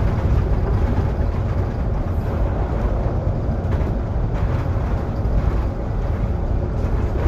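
Solaris Urbino 18 IV articulated city bus under way, heard from inside the passenger cabin: a steady low rumble of the drivetrain and tyres on the road, with a couple of faint knocks about four seconds in.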